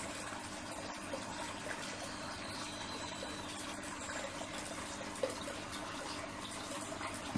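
Aquarium water running and splashing steadily, with a low steady hum under it and a single faint click about five seconds in.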